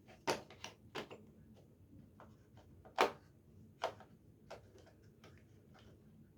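Small hand tools from a tool set clicking and tapping as they are handled: about a dozen sharp, irregularly spaced clicks, the loudest about three seconds in.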